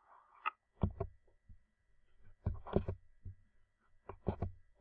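Computer mouse clicked three times, each click heard as a quick pair of dull knocks, press and release.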